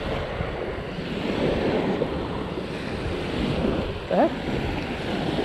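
Small waves breaking and washing up a sandy shore, with wind buffeting the microphone. About four seconds in, one short rising call cuts through.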